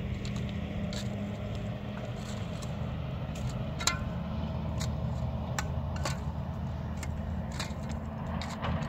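Steady low mechanical rumble, with irregular sharp clicks and knocks over it; the loudest knock comes about four seconds in.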